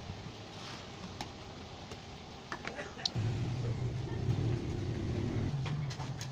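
Small electric blower fan on the oil burner's air pipe, switched on about three seconds in and running with a steady low hum. Near the end the hum turns slightly higher and weaker. A few clicks and knocks from handling the fan come before it starts.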